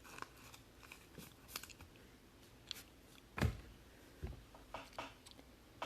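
Faint rustles, clicks and light taps of trading cards and their plastic holders being handled and set down on a table; the loudest tap comes about three and a half seconds in, with a few smaller ones after it.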